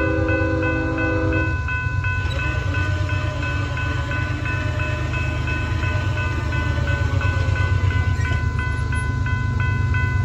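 Railroad grade-crossing bell ringing in rapid, even strokes as a diesel locomotive's air horn sounds for the crossing. One horn blast ends about a second and a half in, and a fainter long blast follows for several seconds. A low rumble runs underneath.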